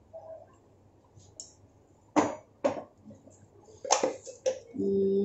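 A few sharp clinks of a metal spoon against a glass bowl as spice powder is shaken in, with quiet room tone between them.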